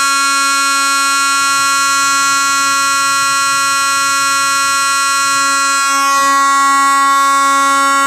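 Simplex 4041 fire alarm horn, a rebranded Federal Signal 450 DC mechanical vibrating horn, sounding one loud, steady, unbroken tone after its pull station has been pulled.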